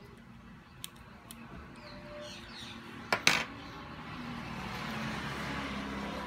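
Small metal clicks of steel tweezers working on a phone's opened frame. Two sharp clicks a little after three seconds are the tweezers being set down on a workbench, and a steady hiss builds up in the second half.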